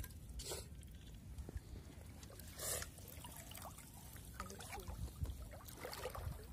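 Water trickling and splashing in shallow water as a wet monofilament gill net is handled and fish are taken from it, with a few short, separate splashes.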